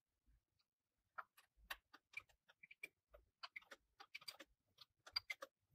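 Faint, irregular metallic clicks and ticks of a flat spanner turning the hex nuts on a sewing-machine servo motor's threaded mounting rod. The nuts are being run down to adjust the motor height and belt tension. The clicks begin about a second in and are loudest near the end.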